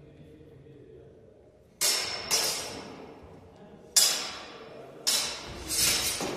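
Longswords clashing in a sparring exchange: five sharp strikes in quick groups, about two seconds in, four seconds in and five to six seconds in, each echoing through the hall.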